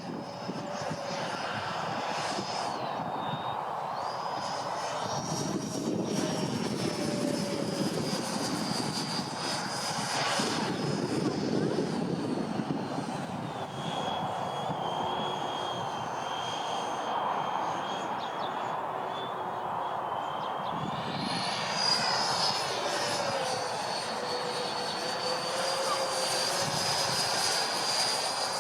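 Freewing MiG-29 model jet's twin 80 mm nine-blade electric ducted fans, driven by brushless motors, running in flight: a high fan whine over rushing air. The pitch dips briefly near the start, drops as the throttle comes back about halfway through, and climbs again about three quarters through as power is added.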